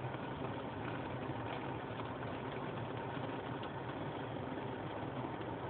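Car air-conditioning blower running steadily, with the engine idling underneath as a low hum.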